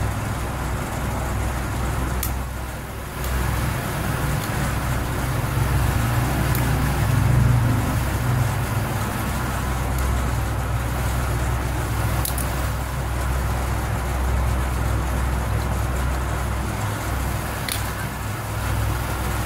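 Steady low hum and rumble of background noise, with a few faint clicks scattered through it.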